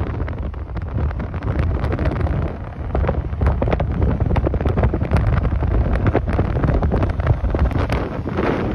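Wind buffeting a phone microphone in a moving car, a loud low rumble with frequent crackles.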